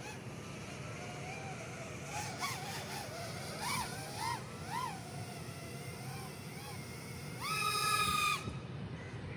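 A 3-inch FPV micro racer quadcopter's motors and propellers whining, the pitch rising and falling in short sweeps as the throttle is worked. Near the end it holds one higher, louder steady whine for about a second.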